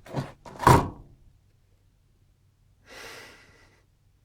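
A man's voice: a short exclamation in the first second, then a breathy gasp or sigh about three seconds in.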